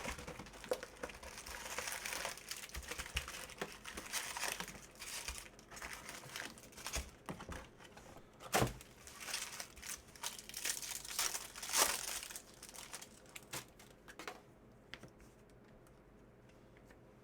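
Crinkling and tearing of foil baseball-card pack wrappers being ripped open, with two sharper, louder rips partway through. It dies down to faint handling near the end.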